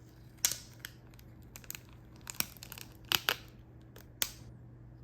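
Plastic snack packaging being handled and opened, crinkling and crackling in a string of short, sharp bursts. The loudest come a little after three seconds in.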